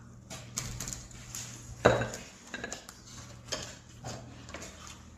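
Eating utensils clinking and knocking against dishes at a meal: a run of irregular light clicks, with one louder knock about two seconds in.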